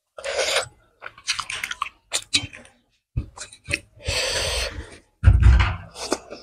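A person chewing mouthfuls of maize rice and curry eaten by hand, close to the microphone, in irregular bursts of varying loudness, the loudest near the end.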